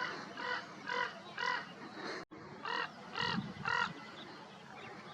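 A bird calling six times, in two series of three evenly spaced calls about half a second apart, with a brief cut between the two series.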